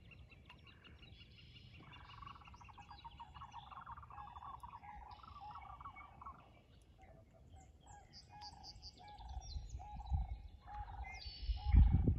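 Several wild birds calling and singing over a river marsh, with a long trill in the first half and a run of short repeated notes in the second. Low thumps near the end are the loudest sound.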